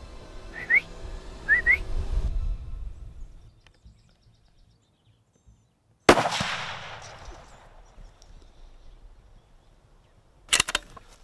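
A single rifle shot about six seconds in: one sharp crack whose echo fades over a couple of seconds. Before it, background music fades out with two short rising whistles, and a few sharp clicks come near the end.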